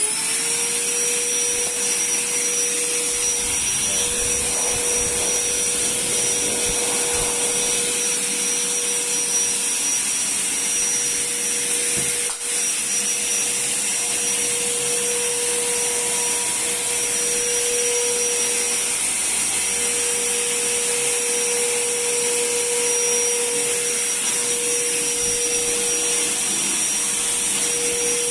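INGCO VC12121 1200 W wet & dry vacuum cleaner switched on in blower mode, with the hose on the exhaust port. Its motor whines up to speed at once and then runs loud and steady, blowing air, with a brief click about twelve seconds in.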